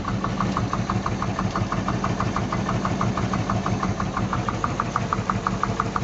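Marine 350 small-block V8 idling with a loud, fast, even knock, about seven sharp ticks a second over the steady engine hum. The owner traces it to the number 6 cylinder's valve, which has no compression, and takes it for a stuck or thrown valve.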